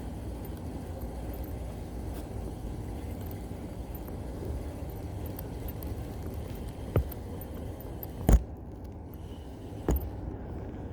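A steady low rumble with three sharp knocks, the loudest a little past the middle.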